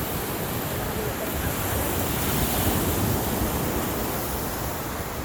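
Waves washing in on the shore, with wind rumbling on the microphone.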